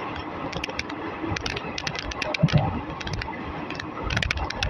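A train running, heard from an ICF passenger coach: wheels rumbling on the rails with irregular sharp clicks and rattles and a few low thumps over the track.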